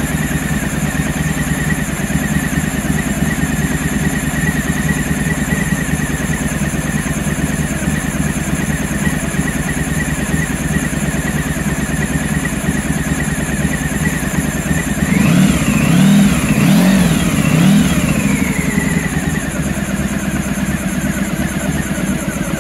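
Honda ST1100 Pan European's liquid-cooled V4 engine idling steadily while still cold on its first run after a rebuild. It is blipped three times in quick succession about fifteen to eighteen seconds in, each rev rising and falling back to idle.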